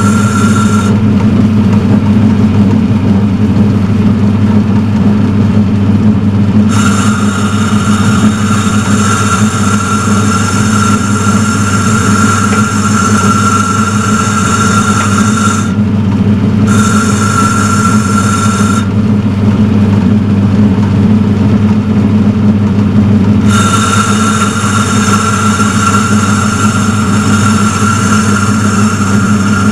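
Turnell & Odell metal lathe running steadily while boring out a change gear: a loud, even low drone, with a higher whine over it that cuts out and comes back several times.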